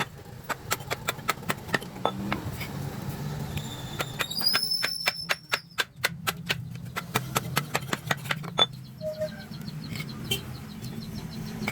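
A rapid series of sharp knocks, about four a second, over a low steady hum, with a brief thin high tone near the middle and the knocks growing sparser near the end.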